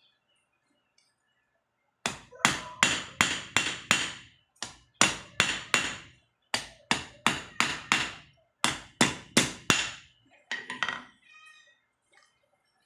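A hammer striking metal in runs of sharp, ringing blows, about three a second with short pauses between runs, ending with a few lighter knocks; metalwork on a welding chipping hammer.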